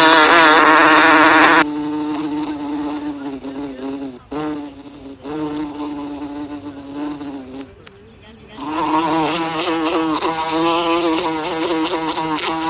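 A bee buzzing in flight: a wavering hum, loudest for the first couple of seconds, then quieter, dying almost away about eight seconds in before coming back strongly.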